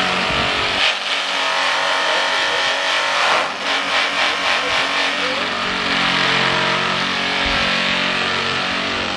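Electric motor driving a rotary brush wheel on a long shaft, scrubbing along the surface of a debarked log: a steady motor hum under a loud abrasive hiss. The scrubbing wavers and pulses for a couple of seconds around the middle as the brush is worked along the wood.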